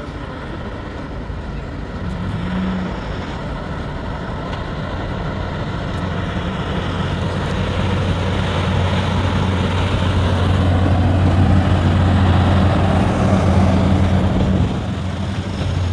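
ST48 diesel locomotive hauling a freight train, its engine hum and the rumble of the train growing steadily louder as it approaches, then dropping back near the end.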